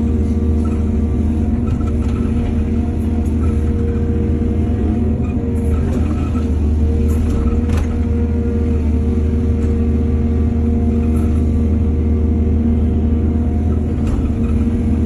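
Diesel engine of a working excavator running steadily at a constant speed, a deep hum throughout, with a few faint knocks in the middle.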